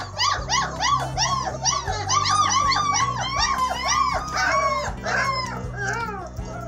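German shepherd puppies whining and yelping, several overlapping high cries a second that rise and fall in pitch, loudest in the middle. Background music with a steady low note runs underneath.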